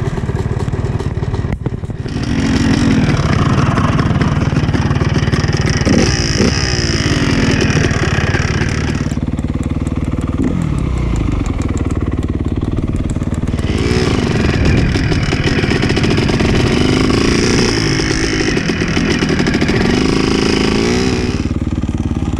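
Honda motocross bike's engine revving up and easing off as it is ridden. The pitch rises and falls repeatedly, and the engine goes quieter and lower for a few seconds about halfway through.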